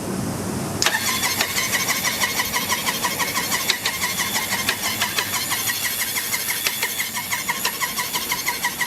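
Triumph Trophy 900 three-cylinder engine spun over on its electric starter with no spark plugs or carburettors fitted, so it cranks without firing. The starter kicks in about a second in and turns the engine at an even, rapid pulse, with an occasional clattering sound the owner cannot place.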